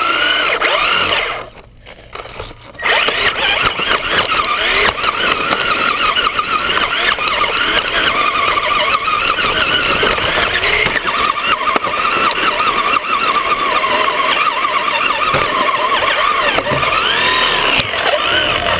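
Electric Traxxas RC car's motor and gears whining up close, the pitch rising and falling with the throttle, over the hiss of tyres on dirt. It drops away briefly about two seconds in.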